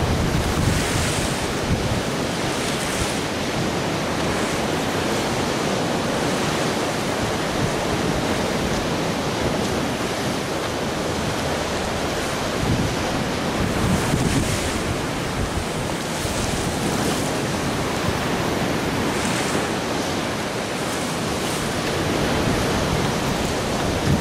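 Rough sea with waves breaking, a steady wash of surf noise, and wind buffeting the microphone in stronger gusts now and then.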